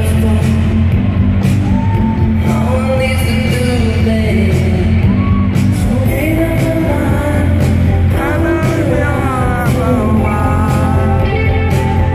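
A synth-pop band playing live in a large hall: sung vocals that glide up and down over a heavy bass line and a steady drum beat, loud and full from the audience.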